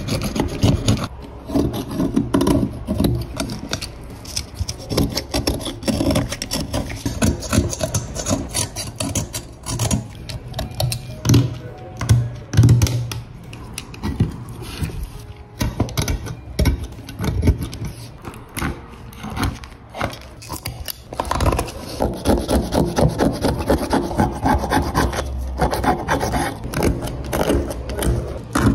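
Hobby knife blade scraping flaking paint and rust off a diecast metal model-car body in quick, repeated strokes.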